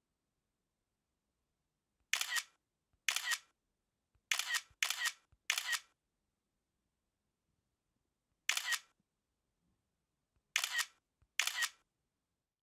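iPhone camera shutter sound, a short two-part simulated shutter click, played eight times with dead silence between. Three of the clicks come in quick succession about half a second apart, and the others are spaced one to three seconds apart.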